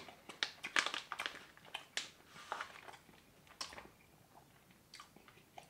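Soft, irregular clicks and crinkles from handling a plastic bag of beef jerky and chewing on jerky. They thin out after about four seconds.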